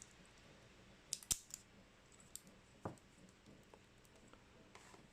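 Faint, scattered clicks and ticks of a Sparrows Worm rake pick working the pins of a padlock, about half a dozen sharp clicks spread over a few seconds.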